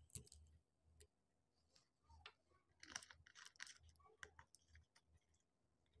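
Faint scattered clicks and light taps from a plastic soda bottle being handled at its cap, with a quick cluster of them about three seconds in.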